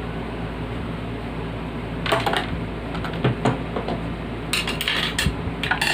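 Clatter and knocks of hard objects being handled and set down, in short clusters, over a steady low hum.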